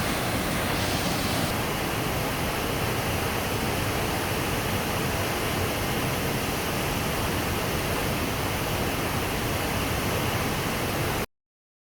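Sahalie Falls on the McKenzie River: a steady rushing roar of falling water with no change in level. It cuts off suddenly near the end.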